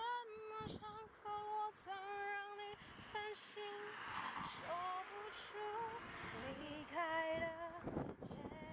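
A woman singing a slow melody, with long held notes that slide from one pitch to the next.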